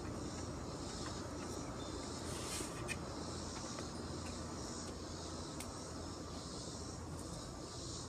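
Insects calling in a pulsing chorus, a high buzz that swells and fades about twice a second, over a low steady hum. A short noise and a click about three seconds in.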